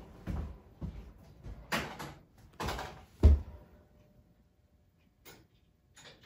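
A series of clunks and knocks from hard parts being handled around an engine case in a hydraulic press. There are about five in the first three and a half seconds, the loudest a little past three seconds in, then two faint clicks near the end.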